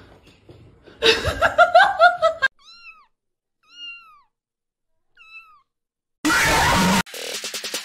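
Kitten mewing: three short, high, arched mews a little over a second apart. Before them there is a louder stretch of wavering cries, and near the end a sudden loud burst of hissing noise, then music begins.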